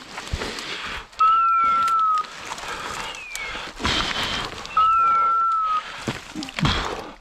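Electronic beeper collar on a hunting dog sounding: two long, steady, pure-toned beeps about three and a half seconds apart, with short falling chirps, one between the beeps and one at the start of each. Around them, brush rustles and twigs crackle as someone pushes through dense juniper scrub.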